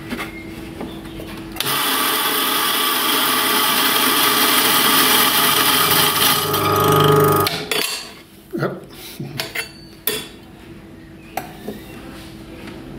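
Faema MPN flat-burr coffee grinder grinding a 10-gram single dose of beans: a loud, steady grinding noise starts about a second and a half in and stops abruptly after about six seconds as the beans run out. A steady hum is heard before and after it, and a few short knocks follow the grinding.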